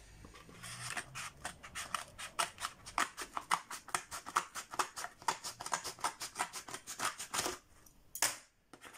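Scissors cutting open a cardboard mailer envelope: a quick run of short snips, about four or five a second, ending about seven and a half seconds in, then one louder snip.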